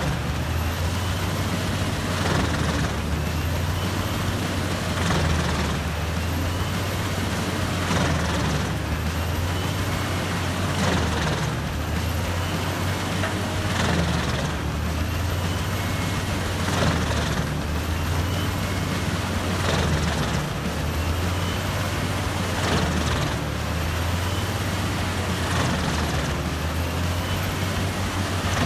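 Large wood chipper running: a steady low engine drone with a surge of noise about every three seconds.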